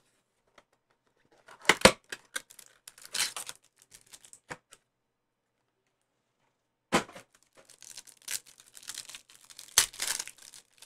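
Trading-card hanger box being torn open, with sharp tearing bursts a couple of seconds in. After a short pause, the clear plastic pack wrapper inside crinkles and is ripped open in a run of crackling tears.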